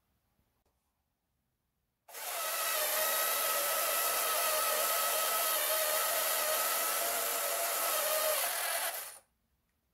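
Small electric motor and gearing of a 1970s Gama toy forklift whirring steadily as the mast lifts the forks. It starts about two seconds in and stops abruptly about seven seconds later.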